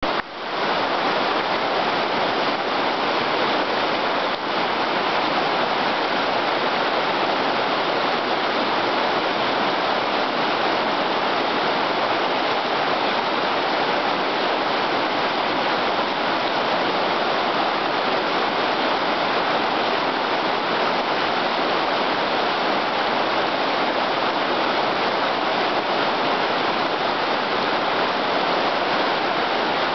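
Whitewater of a small, fast river tumbling over rocks in a shallow rapid: a steady rush of water with no breaks.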